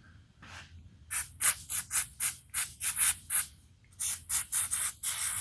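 Aerosol can of chain cleaner sprayed in short, quick hissing bursts, about four a second, then a longer spray near the end, flushing dirt and old grease out of a bandsaw's bearings.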